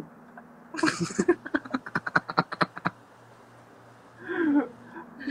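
A man laughing hard: a breathy burst, then a rapid run of 'ha-ha' pulses, about six or seven a second, that stops near three seconds in. A short voiced sound comes at about four and a half seconds.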